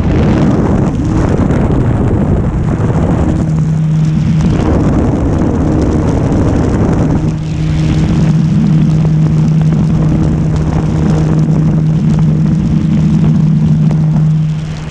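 Electric motor and propeller of a Carbon-Z Cessna 150 radio-controlled model plane buzzing in flight at a steady pitch, with heavy wind noise on the microphone. The hum fades for a few seconds around the middle and returns stronger about seven seconds in.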